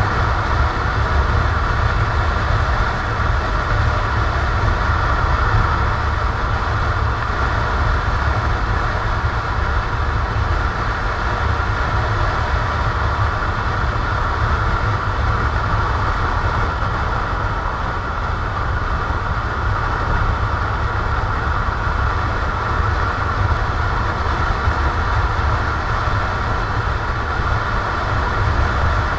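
Motorcycle riding along the road, its engine running steadily under a heavy low rumble of wind on the bike-mounted camera's microphone.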